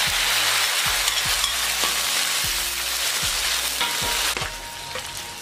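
Food frying in a hot pan with a loud, steady sizzle while it is stirred; the sizzle drops away sharply about four seconds in.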